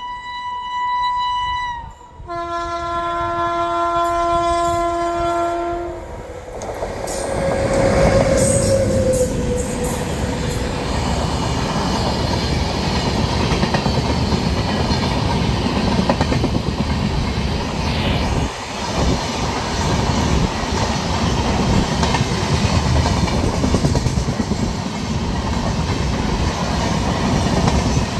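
WAP-7 electric locomotive's horn sounded twice, a short blast and then a longer blast of about four seconds. The Duronto Express then rushes past at speed for the rest of the time, its wheels clattering steadily over the rails.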